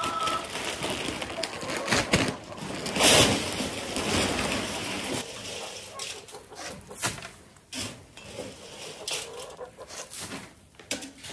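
Hay rustling and crunching as two calves push into a feed bunk and eat through a metal headlock feeder, with a louder rustle about three seconds in and a few sharp knocks later.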